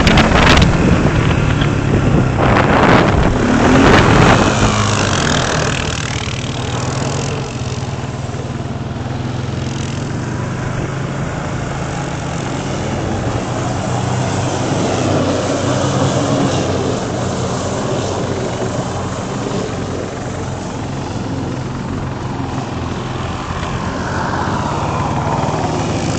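ATV engines revving hard in the first few seconds as the quads spin on snow-covered ice, then running more steadily with the revs rising and falling.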